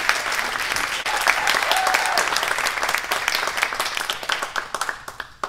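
Audience applauding; the clapping thins out and dies away near the end.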